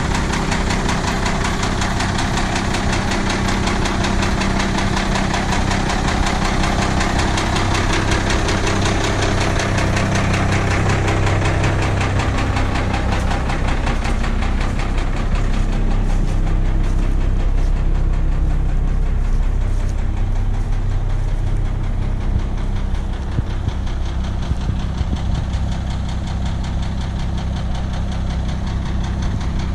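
The International DT466 inline six-cylinder diesel of a 1986 International S1800 school bus idling steadily, shortly after a cold start. It is a little fainter in the last few seconds.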